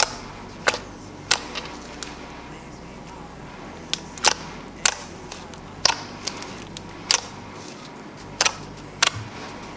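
Slime being pressed and stretched by hand, giving about ten sharp popping clicks at irregular intervals.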